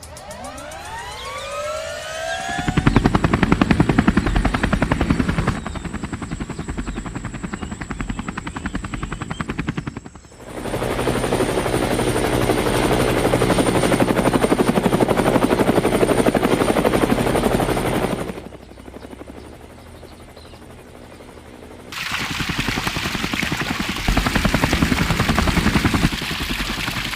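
A small electric motor spins up, its pitch rising over the first two seconds, then runs with a dense, fast buzzing. The sound stops and starts abruptly several times, quieter for a stretch about two-thirds of the way in.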